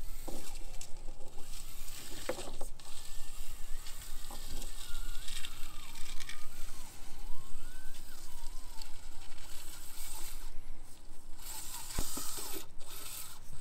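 Micro RC rock crawler driving over rocks: a thin whine that rises and falls in pitch a few seconds in, with a few sharp clicks against a steady outdoor noise.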